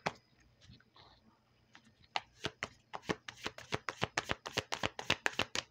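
A deck of tarot cards being shuffled by hand: a quick run of card flicks and slaps that pauses for about a second and a half near the start, then picks up again at about five a second.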